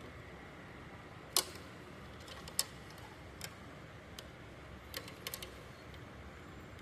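Sharp plastic clicks and light ticks of a Synology DS923+ drive tray's side clip being worked onto a hard drive: one loud click about a second and a half in, another a second later, then a few lighter ticks, several close together near the end.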